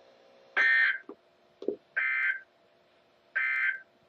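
Three short bursts of EAS digital data tones from a NOAA Weather Radio broadcast, each about half a second long and roughly a second apart: the end-of-message code that closes the weekly test. A faint steady hum runs underneath.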